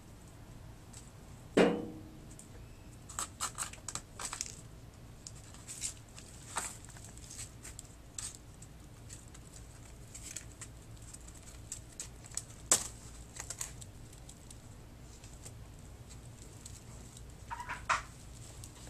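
Kittens playing: scattered light taps, scrabbling and crinkling, with a sharp knock about one and a half seconds in and another about twelve and a half seconds in.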